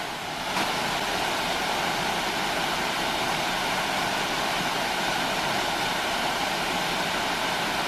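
A small waterfall cascading down a rock face into a shallow pool: a steady rushing of water.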